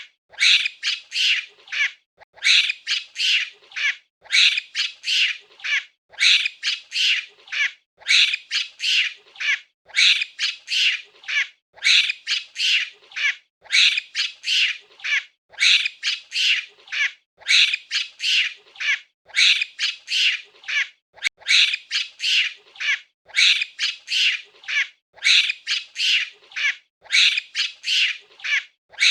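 Monkey calls: shrill, squawking calls in rapid bursts, the groups repeating with short pauses about every two seconds.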